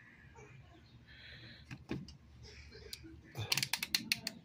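Rotary selector dial of a Commercial Electric manual-ranging multimeter being turned by hand: a few soft clicks about two seconds in, then a quick run of clicks near the end as the switch steps through its positions. The meter has shut itself off and is being switched back on.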